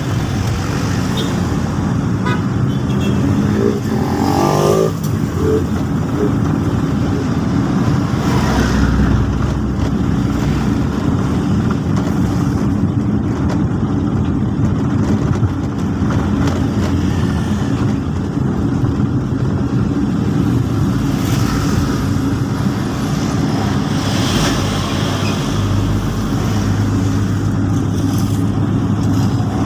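Road traffic: vehicles passing steadily along a city road, with a brief wavering higher-pitched sound about four seconds in.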